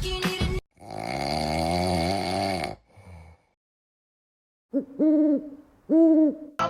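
A long, warbling vocal sound of about two seconds, then a pause, then two short hooting calls near the end, each rising and falling in pitch.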